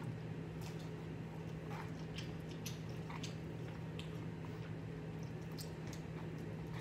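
Cup noodles being eaten with a fork close to the microphone: scattered chewing and mouth sounds and light clicks, over a steady low hum.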